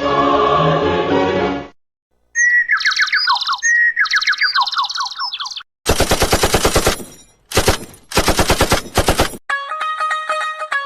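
A run of short meme sound effects, one after another: a brief noisy burst, two chirpy falling trills, then rapid machine-gun fire in two bursts, and plucked-string music starting near the end.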